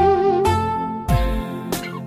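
Instrumental karaoke backing music: a sustained melody line over low bass notes, with a few sharp percussive strikes.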